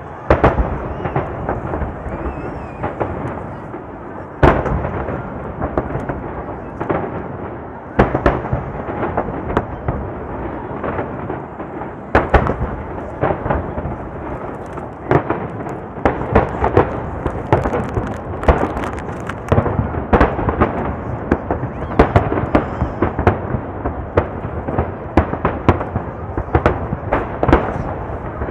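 Dense barrage of aerial firework shells bursting in quick succession. Sharp booms land every second or two over a continuous rolling rumble and crackle, with especially loud bursts every few seconds.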